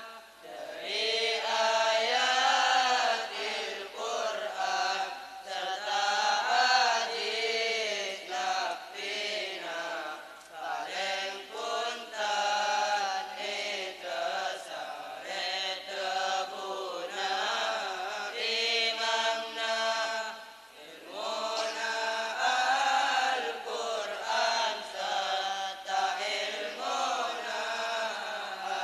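A group of boys chanting Madurese syi'ir verses in unison, a melodic group recitation with brief breaks between lines.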